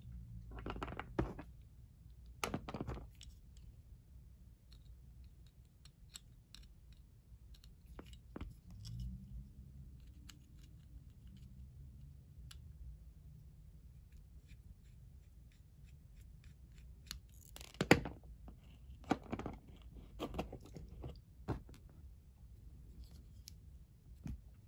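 Small metal clicks and scrapes from a precision screwdriver working a screw and from the parts of a flat vintage petrol lighter being handled as it is taken apart. One sharper click comes about three-quarters of the way through.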